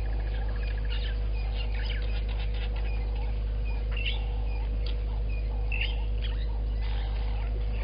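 Wild birds calling in the bush: short repeated high notes and scattered chirps, with a rapid trill that stops about a second in. Under them runs a steady low hum with a faint steady tone.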